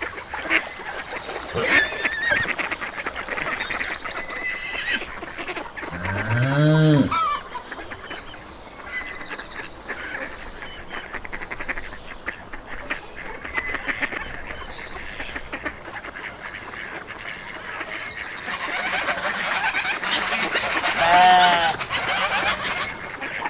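Farmyard ambience: farm animals calling, with one long call rising and falling in pitch about six seconds in and more calls near the end, over scattered bird chirps.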